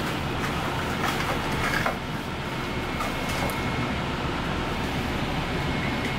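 Steady rumbling kitchen background noise, with a few faint light clicks of chopsticks against the plate as tempura is arranged, and a faint high whine in the middle.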